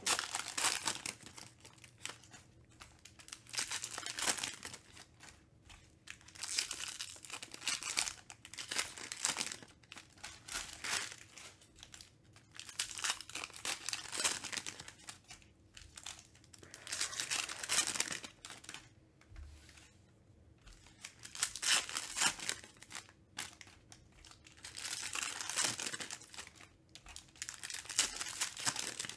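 Foil wrappers of Panini Mosaic football card packs crinkling and tearing as hands rip the packs open one after another, in bursts every few seconds with short quiet gaps between.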